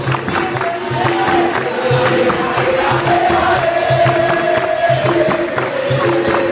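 Capoeira roda music: berimbau and pandeiro played to a steady, repeating drum beat, with voices singing over it.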